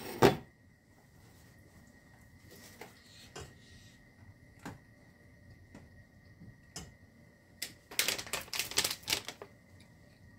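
A few scattered faint clicks, then about eight seconds in a quick run of loud crinkling from a plastic food pouch being picked up and handled. A faint steady high whine runs underneath.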